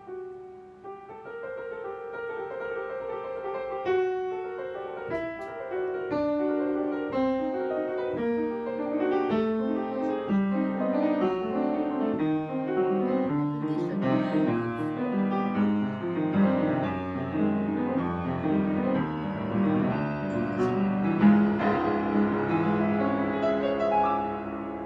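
Solo piano music playing, a flowing melody over chords that grows fuller and louder a few seconds in.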